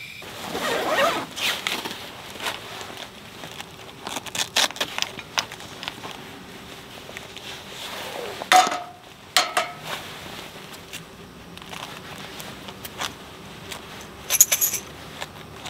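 A zipper on a padded gear bag is pulled open at the start. Then come rustling and scattered clicks and knocks as gear is taken out of the bag and set on a table, with a louder knock that rings briefly about eight and a half seconds in.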